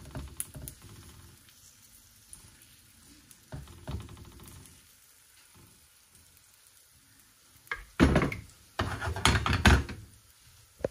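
Spoon spreading batter around an oiled nonstick frying pan, with faint frying sizzle. Near the end come two loud bouts of knocking and scraping as the pan is shifted on the gas stove's metal grate.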